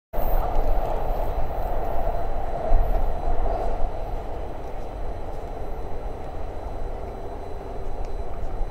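A train running along the line: a steady rumble that cuts in suddenly and is loudest over the first few seconds, then eases slightly.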